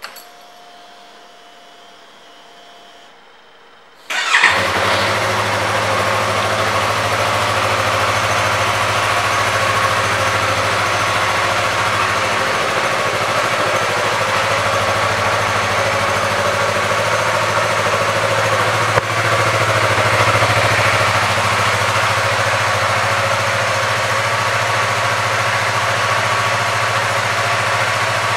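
2017 Yamaha YZF-R3's 321 cc parallel-twin engine started about four seconds in, catching at once and then idling steadily.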